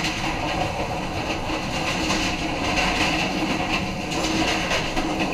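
Sonar Bangla Express passenger train running at steady speed: a continuous rumble of the wheels on the rails, with occasional clacks as they cross rail joints.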